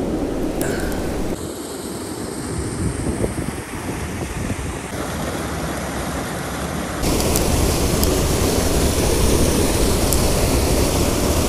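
Creek water rushing over a small waterfall, a steady noisy rush with some wind on the microphone. The sound shifts abruptly a few times and gets louder after about seven seconds.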